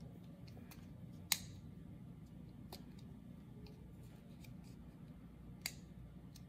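A few faint, sharp clicks and snaps from a rubber band being stretched and looped over a button on a wooden popsicle stick. The loudest comes about a second in and another near the end, over a low, steady room hum.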